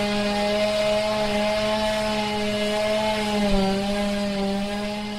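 Chainsaw motor running at a steady pitch, dipping slightly about three and a half seconds in and growing quieter near the end.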